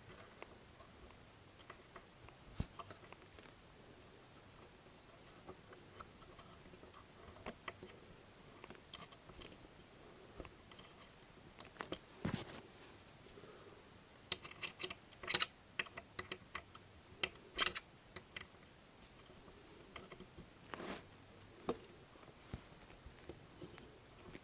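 Scattered clicks, taps and light knocks of parts being handled and fitted together while assembling a flat-screen TV stand. A quick run of sharp, loud clicks comes about two-thirds of the way through.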